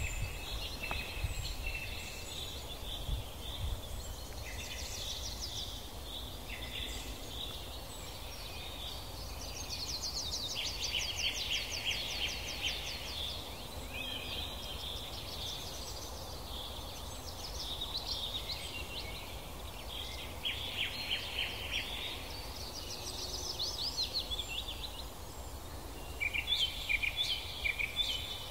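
Songbirds singing in several overlapping phrases of chirps and fast trills, over a low rumble of wind on the microphone.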